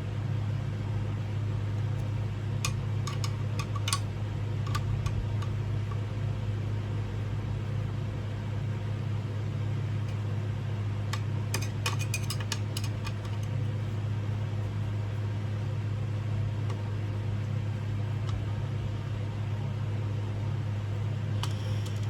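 A steady low mechanical hum throughout, with scattered light clicks and taps of small parts being handled, bunched about three seconds in and again around the middle, as ceiling fan blades are being assembled.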